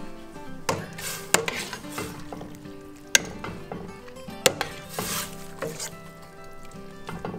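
A metal ladle stirs noodles through a stainless steel pot of soup, the liquid swishing, with a few sharp clinks of the ladle against the pot.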